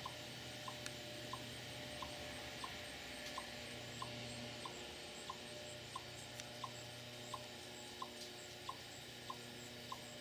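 Eastern chipmunk giving its alarm call: a short, high chip repeated steadily about one and a half times a second, a warning of danger to other chipmunks.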